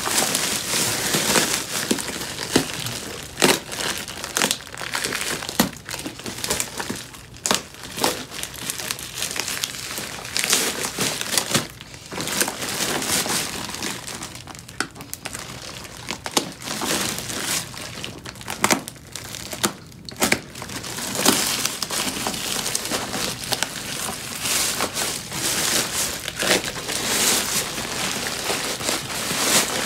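Plastic parcel wrapping and packing tape crinkling and rustling as the package is cut open and pulled apart by hand, with irregular sharp crackles.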